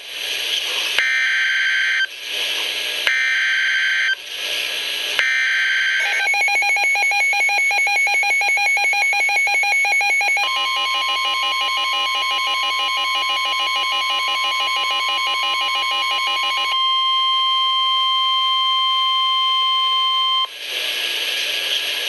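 NOAA Weather Radio alert on a SAME weather alert radio, signalling a newly issued severe thunderstorm warning. First come three one-second screechy bursts of SAME digital header data with radio hiss between them. Then comes a fast pulsing electronic alarm, and then the steady single-pitch 1050 Hz warning alert tone for about ten seconds, ending in hiss.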